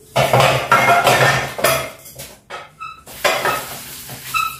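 A soapy cloth scrubbing a tubular metal kitchen chair frame in quick rubbing strokes, with the metal frame clinking and briefly ringing twice: a little before halfway, and again near the end.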